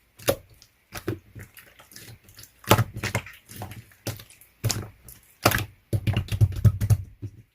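Clear slime being squeezed and poked by hand, making irregular sharp clicks and pops, with a quick cluster of them near the end.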